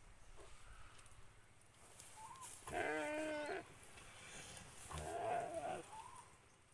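A Timor deer bleating in distress twice, each call just under a second, as a Komodo dragon eats into it alive.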